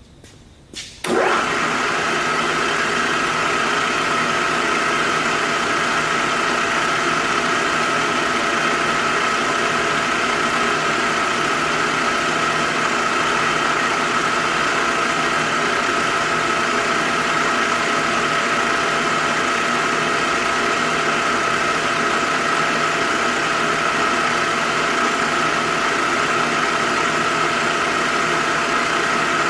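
CNC vertical milling machine switched on about a second in, then running steadily under power with a high, steady whine.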